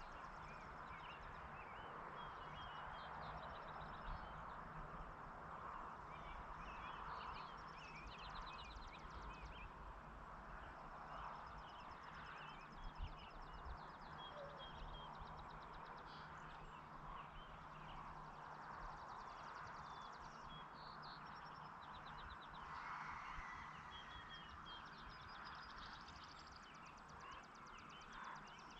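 Faint rural evening ambience: many small birds chirping and trilling over a steady hiss of background noise, with a couple of soft thumps about halfway through.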